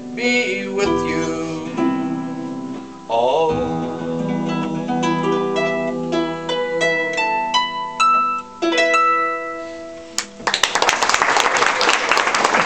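Harp playing the closing phrase of a slow song, single plucked notes ringing and fading. About ten seconds in, audience applause breaks out as the song ends.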